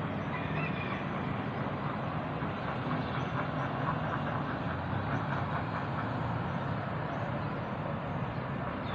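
Steady hum of distant road traffic across a town, an even low noise with no distinct events.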